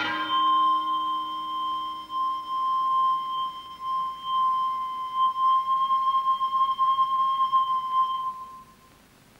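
A singing bowl struck once, ringing with a clear, wavering tone that slowly dies away over about eight and a half seconds.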